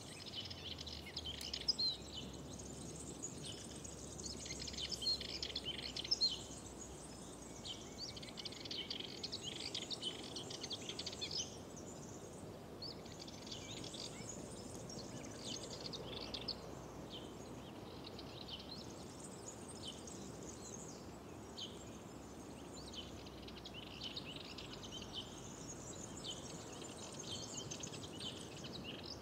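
Songbirds singing in a spring chorus: many quick, high chirps and trills that overlap, busiest in the first half, over a faint steady background hiss.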